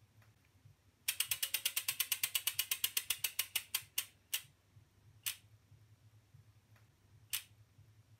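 BMX rear hub ratchet clicking as the wheel freewheels and slows: a quick run of clicks starting about a second in, spacing out, then three lone clicks further and further apart as the wheel comes to rest.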